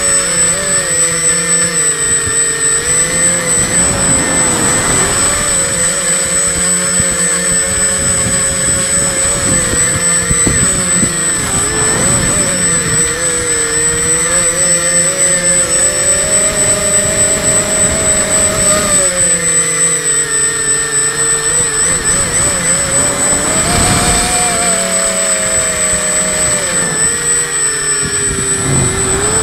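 3D-printed quadcopter's electric motors and propellers whining in flight, the pitch rising and falling as the throttle changes, with wind buffeting the microphone.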